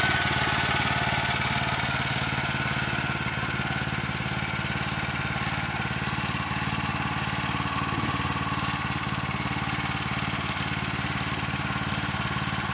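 Small gasoline engine of a Woodland Mills HM122 portable bandsaw sawmill running steadily.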